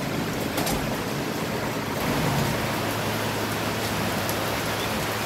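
Steady rain falling, an even hiss with no breaks, over a low steady hum.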